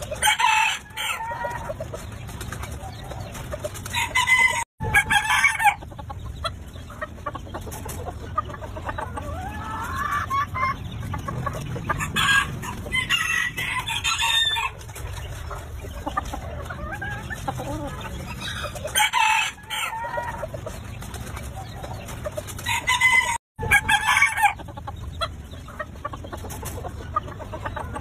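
A rooster crowing several times, about five loud crows spread through the stretch, with softer clucking calls in between. The sound cuts out completely for an instant twice.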